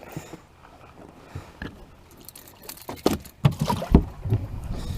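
A few knocks and deep thumps, loudest about four seconds in, after a quieter stretch of faint background noise.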